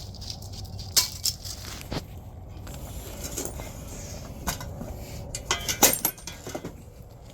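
Metal washers clinking and rattling as they are handled: scattered sharp clinks, with a quick cluster of them about six seconds in.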